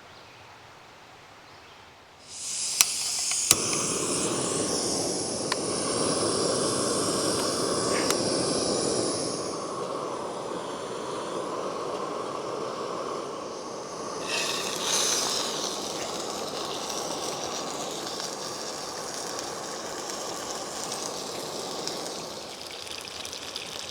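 Food sizzling in a hot skillet on a camp stove. It starts suddenly about two seconds in as the food goes into the hot pan, with a few sharp pops. It is loudest at first, flares again briefly in the middle, then settles into a steady frying sizzle.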